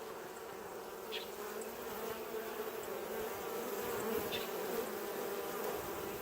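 A dense, steady hum of many honeybees flying in and out at a busy hive entrance, rising a little in the middle. Two brief high chirps can be heard, about a second in and about four seconds in.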